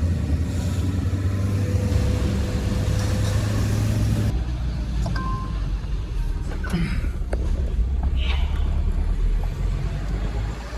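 Truck engine and road noise heard from inside the cab while driving: a steady low rumble. About five seconds in there is a short beep, followed by a few knocks.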